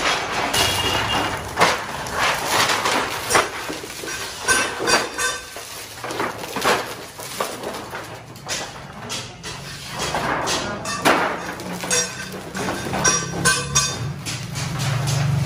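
Irregular metallic clanks, taps and clinks of galvanized sheet steel being worked and handled. A low steady hum comes in about two-thirds of the way through.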